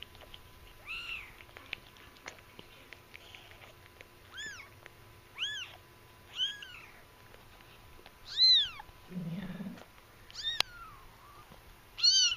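A newborn kitten mewing: about seven short, high-pitched cries that rise then fall in pitch, mostly about a second apart, the loudest about eight and a half seconds in. A brief low sound comes about nine seconds in, and a single click a second later.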